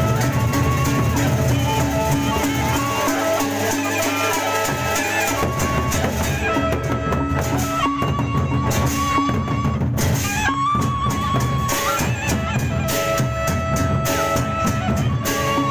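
Gendang beleq ensemble playing its short closing piece: dense, fast drum and cymbal strikes under a held melodic line that shifts between a few sustained notes.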